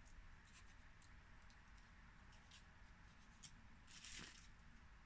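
Near silence, with faint clicks and rustles of a small plastic accessory container and its wrapping being handled and opened, and a slightly louder rustle about four seconds in.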